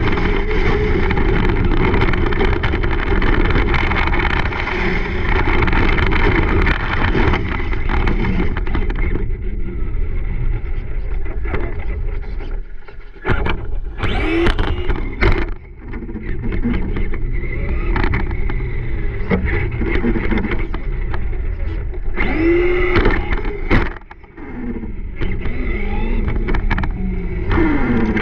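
Onboard sound of a Traxxas Slash RC truck driving: a dense rumble of tyres over gravel and grass for the first several seconds, then its motor whining up and down in pitch with the throttle, with sharp knocks from bumps.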